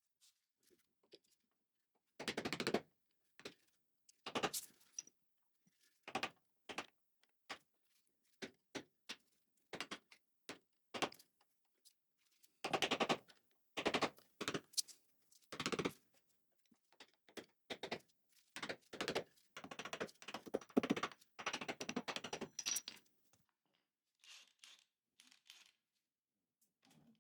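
Hand-tool work on metal while the front beam is unbolted from a 1956 VW Beetle chassis: irregular bursts of rapid clicking, half a second to a second long, between single knocks and clanks.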